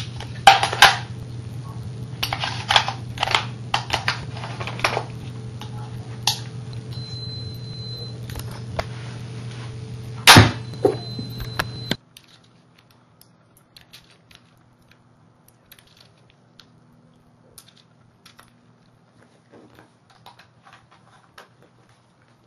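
Homemade coil gun pistol: clicks and handling over a steady low hum, a high whine from the charging circuit, then one sharp, loud crack as it fires about ten seconds in. The sound then cuts off abruptly, leaving only faint clicks.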